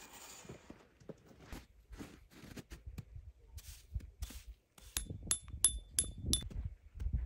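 A peg hammer striking a metal tent stake in snow: five quick, ringing metallic clinks a little past halfway, after a few seconds of scattered rustling.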